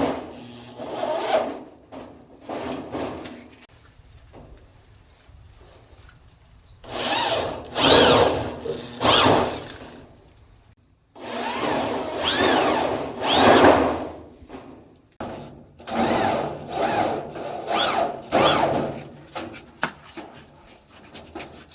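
Tool working wood in several bursts of one to three seconds, the pitch rising and falling within each burst, with quieter pauses between.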